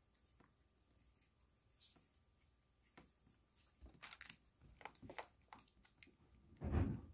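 Cat nosing and pawing at a cardboard advent calendar: soft scratches, clicks and crackles of cardboard, then a louder dull thump near the end.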